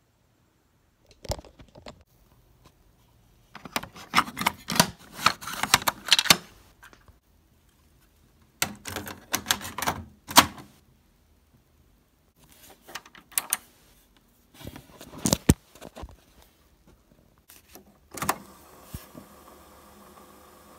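Handling noise: irregular clusters of clicks, knocks and rattles with silent gaps between them, then a faint steady hum in the last couple of seconds.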